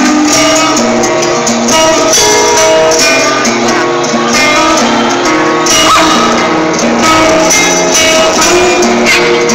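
Loud live heavy-metal band music with guitars, steady and dense throughout.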